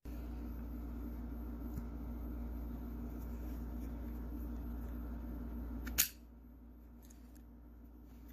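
Steady low background hum with a faint tick about two seconds in and one sharp click about six seconds in, after which the hum drops away.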